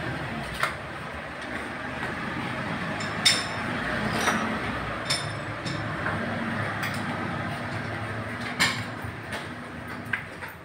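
Auto-repair-shop background: a steady din with an on-and-off low hum, broken by several sharp metallic clinks and clanks of tools. The loudest clanks come a little over three seconds in and again near nine seconds.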